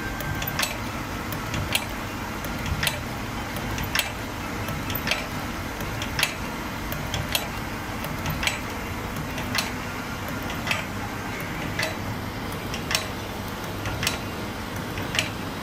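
Camphor tablet making machine running: a steady motor hum with a sharp regular click about once a second and lighter ticks in between, as tablets are pressed and dropped down the chute.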